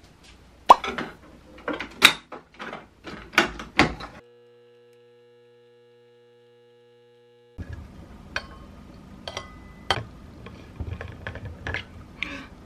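Sharp clicks and knocks of handling at the illy capsule espresso machine, then the machine's quiet steady hum for about three seconds as it brews a shot into a glass, then more clicks and clatter.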